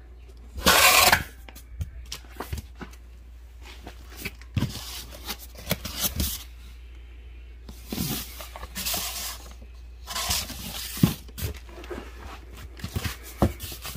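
Firework packaging being handled: cardboard and plastic wrapping rustling and scraping in irregular bursts, loudest about a second in.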